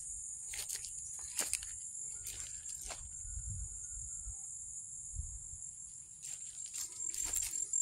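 Steady high-pitched insect chorus, with intermittent footsteps and rustling through grass and weeds.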